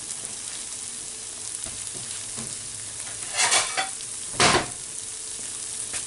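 Beef bolognese sauce sizzling softly in a square nonstick skillet while metal tongs stir through it, with two louder scrapes of the tongs against the pan in the second half.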